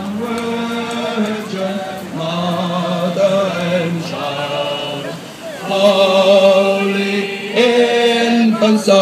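A mixed group of carollers singing a Christmas carol together in long held phrases. The singing drops away briefly about five seconds in, then comes back louder.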